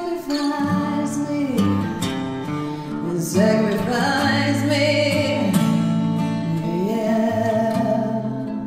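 A woman singing a slow ballad, holding long notes that slide up and down in pitch, over a guitar accompaniment.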